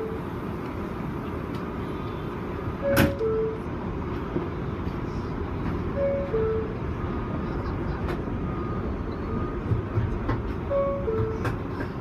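Two-note descending chime, a higher note followed by a lower one, sounding several times over the steady hum inside a stopped R188 subway car, with a sharp knock about three seconds in and a few clicks near the end.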